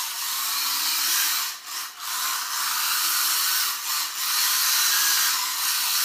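WLtoys K969 mini RC drift car's little electric motor and gear train whining at speed as it drifts in circles on a tiled floor. The sound drops out briefly in two quick pairs, about one and a half and four seconds in, as the throttle is let off and picked up again.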